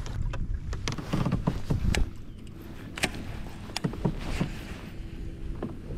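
Scattered knocks and clicks of gear against a fishing kayak's hull, clustered about one to two seconds in, then sparser.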